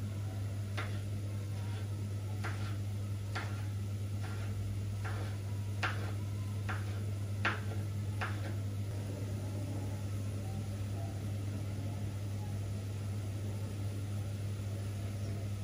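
Kitchen knife chopping a green vegetable on a wooden cutting board: about ten even chops a little under a second apart, stopping about halfway through. A steady low hum runs underneath.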